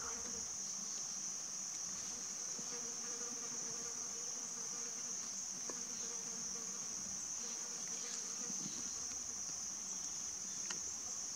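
Insects trilling in one steady, high-pitched drone, with a few faint ticks about halfway and near the end.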